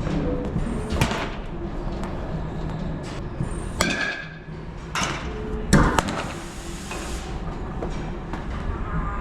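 High-speed batting-cage pitching machine running with a steady low hum, with four sharp knocks of the pitch and batting, the second ringing briefly and metallically, the fourth the loudest.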